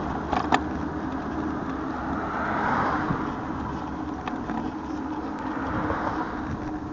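Road noise heard on a street ride: a steady low hum, with passing traffic swelling up twice and a few light rattles.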